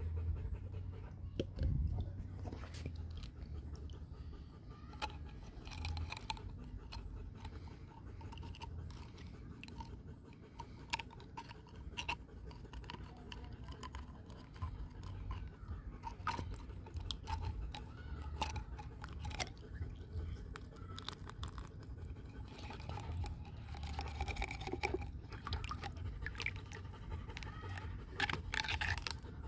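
Close handling noise: scattered clicks, crackles and rubbing sounds from hands working at the clay and paper, over a low rumble from the hand-held phone.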